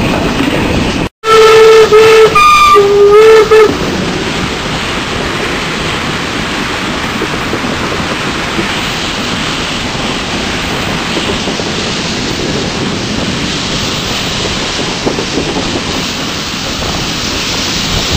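Steam locomotive V-820 sounding its steam whistle in two loud blasts starting about a second in, heard close up from the cab. The whistle is followed by the steady rush of wind and the running locomotive and train.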